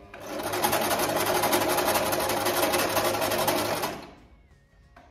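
Singer Simple electric sewing machine stitching a straight seam in a fast, even rhythm of needle strokes, stopping about four seconds in.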